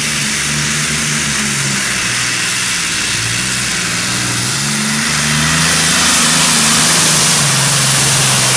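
Modified pulling tractor with several supercharged engines running at full throttle under the load of the pulling sled. The engine note is steady and grows louder about five seconds in.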